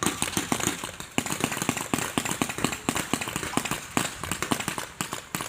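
Airsoft gunfire: rapid, irregular sharp cracks that keep coming throughout.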